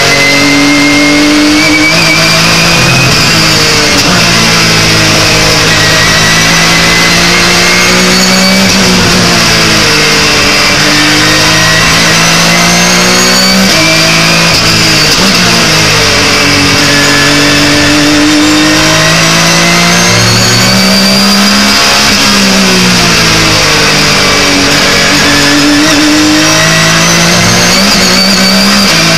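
Porsche 911 GT3 Cup race car's flat-six engine, heard from inside the cockpit at racing speed. The engine note climbs and falls again and again as it pulls through the gears, shifts and brakes for corners.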